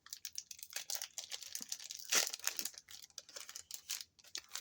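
Foil booster pack wrapper crinkling and tearing as it is handled and opened: a dense run of small crackles, loudest about two seconds in.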